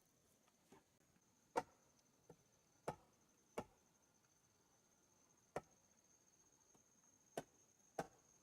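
Sharp strikes at uneven intervals, like a blade or tool chopping into wood: about six loud ones and a few fainter. A steady faint high whine runs underneath.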